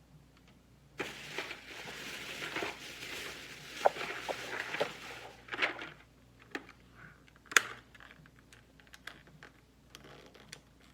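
Hand tools working on old automotive wiring, likely stripping heat-hardened insulation: a few seconds of scraping and rustling, then several sharp clicks of the tool.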